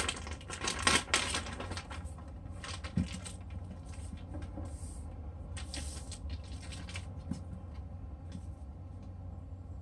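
Plastic packaging bag crinkling and rustling as a charger wrapped in it is handled and lifted out of its box, loudest in the first two seconds, then a few faint rustles. A steady low hum runs underneath.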